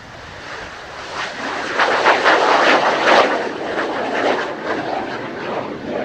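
Kawasaki T-4 jet trainer's twin turbofan engines at power as it lifts off and climbs away from a touch-and-go. The jet roar builds over the first two seconds, is loudest about two to three seconds in with a crackling rasp, then eases a little as the aircraft pulls away.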